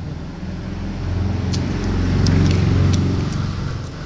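Spicy instant noodles being eaten close to the microphone: a few sharp wet mouth clicks and smacks of chewing, over a low rumble that swells about two seconds in and is the loudest sound.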